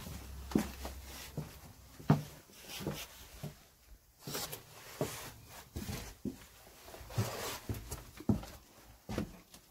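Irregular footsteps and scuffs on a littered floor, with a few sharper knocks, the loudest about two seconds in.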